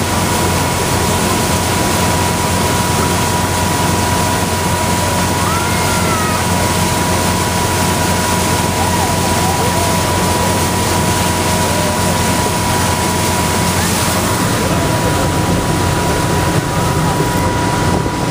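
Motorboat running at speed: a steady rush of wind over the microphone and churning wake water, with the boat's engine droning underneath.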